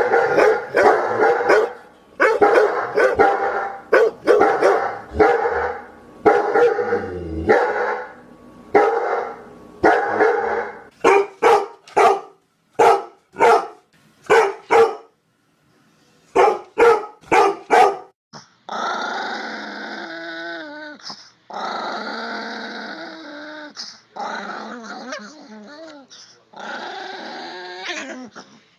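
Dogs barking, a long string of separate barks that turn shorter and sharper after about ten seconds, ending in a quick cluster. In the last third, a dog growling in four long stretches.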